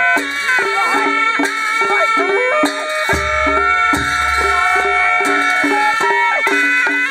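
Nepali panche baja band playing: a sahanai (shawm) holds a reedy, nasal melody over a quick, steady drum beat and clashing cymbals, with a deep low drone sounding through the middle.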